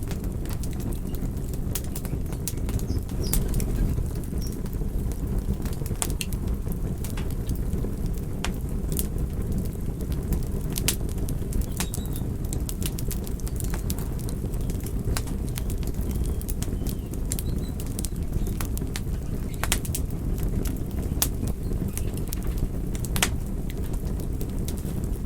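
Wood fire burning in a fireplace: a steady low rumble of flames with irregular sharp crackles and pops of burning logs.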